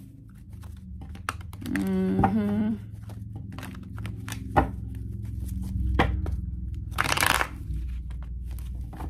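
A deck of tarot cards shuffled by hand over a table: a run of light card snaps and taps, with a longer riffling swish about seven seconds in. A person briefly hums about two seconds in.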